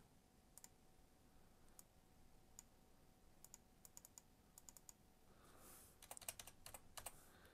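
Faint computer keyboard keystrokes and mouse clicks: a few scattered clicks, then quicker runs of them about halfway through and again near the end.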